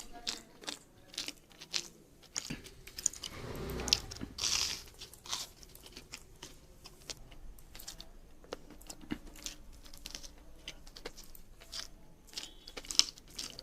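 Close-miked eating: a person biting, crunching and chewing food, with many short wet mouth clicks and a denser stretch of crunching about four seconds in.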